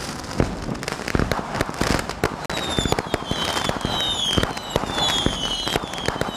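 Fireworks going off: a rapid, irregular run of bangs and crackling firecrackers, joined about three seconds in by a series of short falling whistles.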